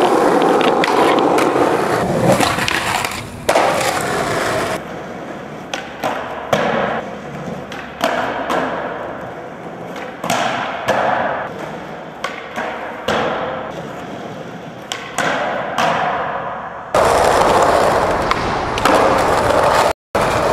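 Skateboard wheels rolling on concrete and brick pavers, broken by sharp tail pops and clacking landings of flip tricks. The rolling sound changes abruptly twice as the footage cuts between spots, with a brief dropout near the end.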